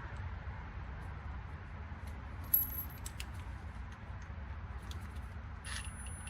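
Small metallic clicks and clinks of hand tools being handled, with one sharper click about two and a half seconds in, over a steady low hum.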